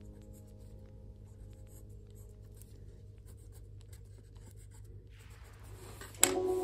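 Pencil writing on kraft paper: faint, scattered scratching strokes as letters are drawn. Near the end there is a rustle, then one sharp click, and music comes in.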